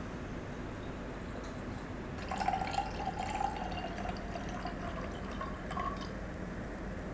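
Liquid being poured or trickling, with a faint tone and small clicks, from about two seconds in until about six seconds, over a steady low background hum.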